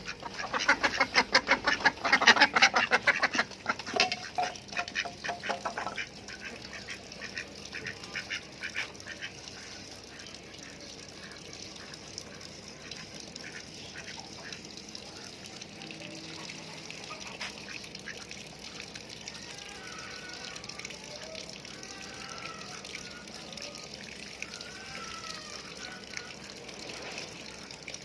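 Ducks quacking in a loud, rapid chorus for the first six seconds or so, then dropping off to a few quieter calls over a steady background hiss.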